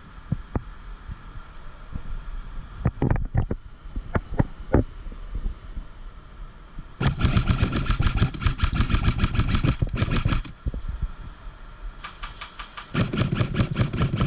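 Airsoft electric gun firing on full auto: two long, rapid bursts of evenly spaced shots, the first about three and a half seconds long, the second starting near the end. A few single sharp clicks come before them.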